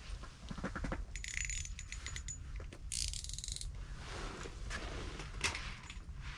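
A small fish pulled from an ice hole and unhooked by hand: scattered light taps and clicks on the ice and tackle, with a short burst of rustling about three seconds in.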